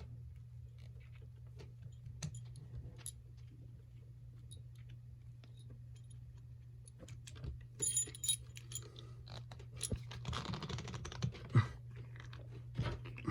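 Metal trick bolt puzzle being twisted and worked by hand: scattered light metallic clicks and clinks, getting busier in the last few seconds, over a steady low hum.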